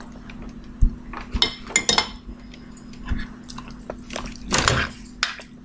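A metal spoon clinking and scraping against a metal cooking pot as chunks of strawberry and other fruit are stirred into sugar syrup, in a few separate clatters over a steady low hum.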